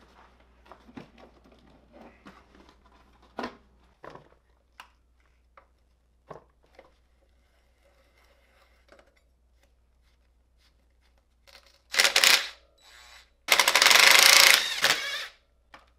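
Small clicks and knocks of parts being handled, then a cordless impact driver hammering at the front axle of a Honda CRF450's fork to loosen bolts for fork removal. It runs in two bursts: a short one about twelve seconds in and a longer one of about a second and a half.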